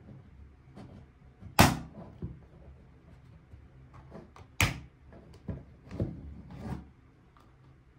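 Small miniature toy kitchen pieces being handled and set down: a string of sharp clicks and knocks, the loudest about a second and a half in, another strong one about four and a half seconds in, with lighter taps after it.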